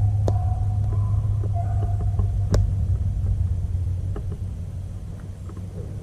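Beagles baying in the distance while running a rabbit, long drawn-out notes in the first two seconds, over a steady low rumble. A couple of sharp clicks come about a third of a second and two and a half seconds in.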